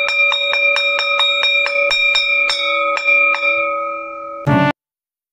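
A metal bell struck rapidly, about four to five strokes a second, ringing steadily, then fading out. A brief loud burst follows near the end, then the sound cuts off.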